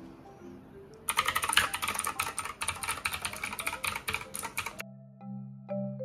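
Fast typing on an Akko 3087 V2 mechanical keyboard: a dense run of key clicks lasting nearly four seconds, over soft background music. Near the end the typing stops and bright mallet-percussion music, like a marimba, takes over.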